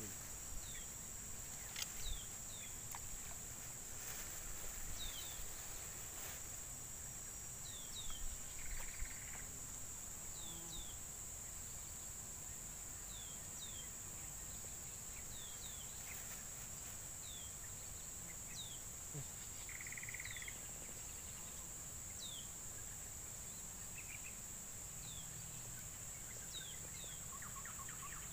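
Steady high-pitched insect drone, with a bird giving short falling chirps every second or two and a few soft clicks in the first several seconds.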